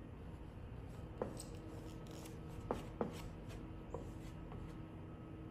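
Hand squeegee and fingers working dry-applied vinyl tint film down onto a plastic tail-lamp lens: faint rubbing with a few light clicks and taps, the sharpest a little over a second in and around three seconds in.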